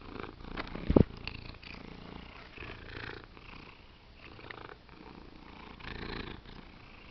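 Tabby cat purring right up against the microphone, with a loud knock about a second in.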